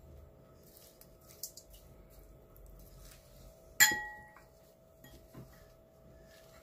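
A single sharp clink of dishes about four seconds in, ringing briefly, with a few faint light taps before it, as a small bowl of fish sauce is emptied over a stainless steel mixing bowl.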